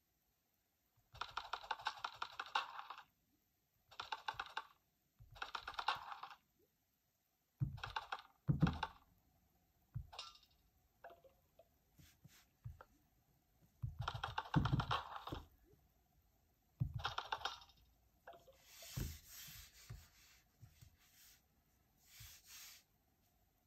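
Short bursts of rapid clicking, each about a second or two long and several seconds apart, with softer rustling near the end.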